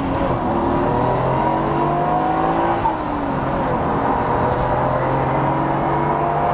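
Nissan Skyline GT-R R33's twin-turbo RB26DETT straight-six accelerating through the gears, heard from inside the cabin. The engine note climbs, drops at a gearshift about three seconds in, then climbs again.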